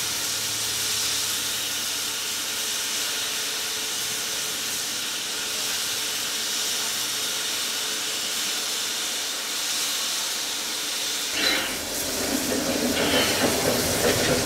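Steam locomotive 3237, a NSW 32-class 4-6-0, standing with steam hissing steadily. About eleven seconds in, a Freightliner diesel locomotive comes past close by, and its rumble and a few short high wheel squeals take over.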